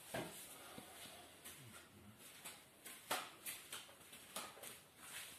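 Quiet room with faint scattered clicks and rustles, the clearest about three seconds in.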